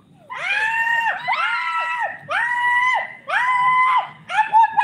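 High-pitched screaming, repeated over and over: long held cries of about a second each, roughly one a second, starting about a third of a second in.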